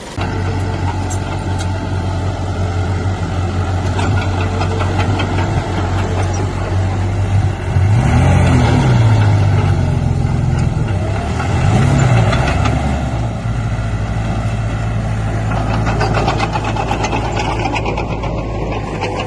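Heavy vehicle engine running steadily, revving up and back down twice, about 8 seconds in and again about 12 seconds in.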